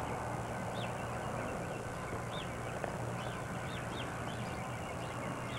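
Steady outdoor background noise on an old camcorder recording: a constant low hum and hiss, with faint short high chirps every second or so.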